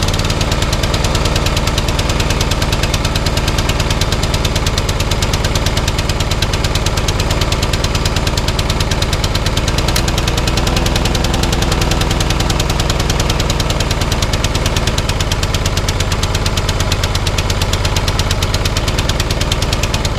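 MTD four-stroke engine on a Lawnflite rotary lawnmower running steadily after a pull start. Its throttle is not working: the cable moves at the handle lever but not at the engine end.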